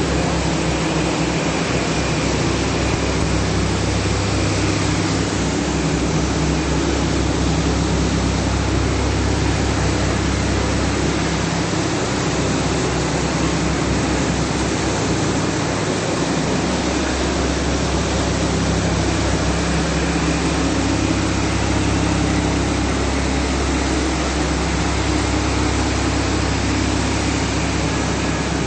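Concrete floor-finishing machine running steadily: a constant engine-like low hum under a loud even hiss, the low hum easing slightly for a few seconds around the middle.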